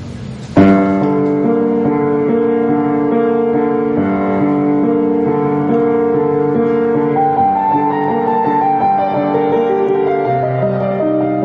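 Background piano music that starts suddenly about half a second in, slow sustained notes over held chords, after a brief noisy hiss.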